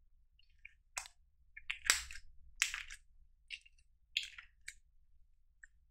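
Slime being squeezed and kneaded by hand, giving a string of short, irregular wet pops and crackles as air pockets burst; the loudest come around two to three seconds in.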